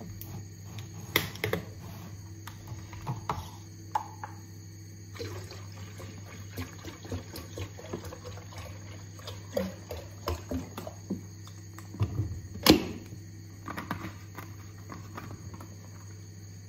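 Water poured from a 5-litre plastic drinking-water bottle, with the thin plastic and its cap clicking and knocking as the bottle is handled. One sharp knock, the loudest sound, comes about three-quarters of the way through.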